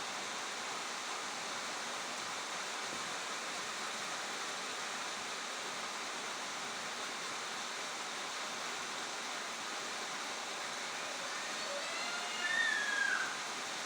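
Steady rushing of flowing water, even and unbroken. Near the end, a short pitched call, perhaps a second long, falls in pitch above the water.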